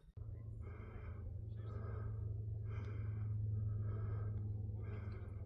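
A person breathing hard, a breath about once a second, over a steady low hum.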